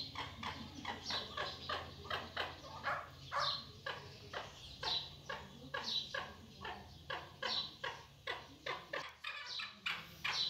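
A chukar-type partridge calling over and over in a fast, even series of short, harsh notes, about two to three a second.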